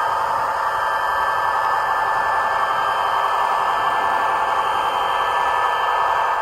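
HO scale model diesel locomotive running along the track close by: a steady rushing whir with a faint hum.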